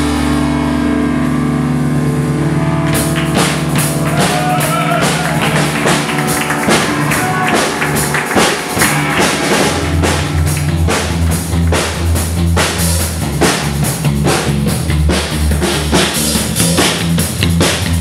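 Live rock band playing loudly: two electric basses, electric guitar, keyboard and drum kit. The first few seconds are held bass and keyboard notes with little drumming; the drums come back in about three seconds in and keep a steady driving beat, and the low bass grows heavier about ten seconds in.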